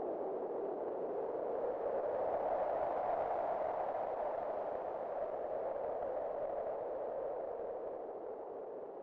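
Wind blowing with a hollow, whistling tone. It swells and rises slightly in pitch a few seconds in, then eases off and drops in level near the end.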